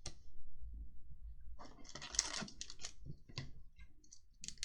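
Trading cards being handled: quick light clicks and taps as cards are flicked and slid against each other, with a denser rustle of card stock or pack wrapper about two seconds in.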